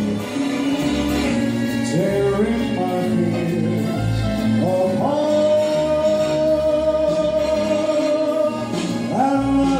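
Music with a singer and backing band; the singer holds one long note through the middle.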